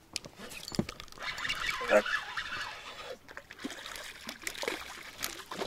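Hooked fish thrashing at the water's surface beside the boat: irregular splashing with scattered knocks.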